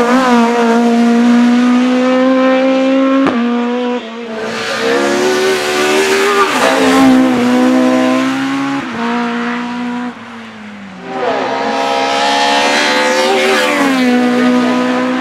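Race car engine under hard acceleration, held at high revs with sudden breaks and drops in pitch at gear changes. There is a brief lull about ten seconds in, then the engine note at high revs again.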